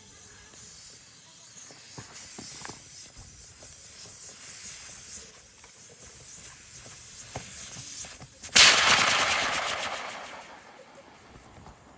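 Camping gas stove burner hissing steadily. About eight and a half seconds in, a sudden loud crackling hiss starts, then fades away over about three seconds.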